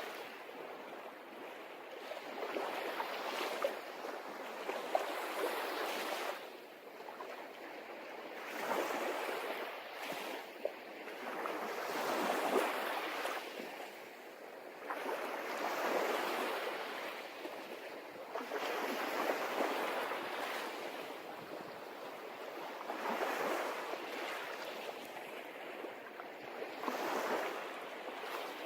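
Sea waves breaking and washing in, swelling and fading every three to four seconds.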